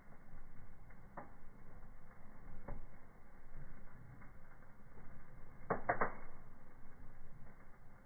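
Wood fire burning in a fireplace, crackling with scattered sharp pops: single pops about one and three seconds in, and a quick run of three louder pops about six seconds in.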